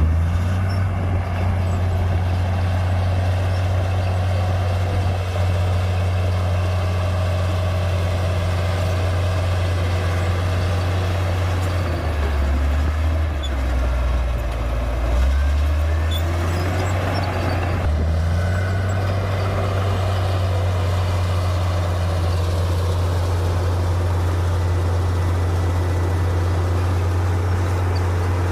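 Komatsu D58P bulldozer's diesel engine running steadily with a deep drone. About halfway through, its pitch sags lower for several seconds before picking back up.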